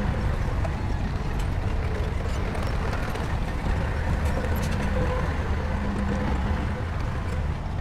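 Shantui bulldozer's diesel engine running steadily under work, a constant low drone.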